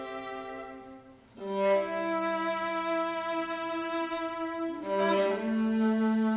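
String quartet (two violins, viola and cello) bowing long held chords. The first chord fades almost to nothing about a second in, a new chord comes in sharply, and it moves to another held chord near the end.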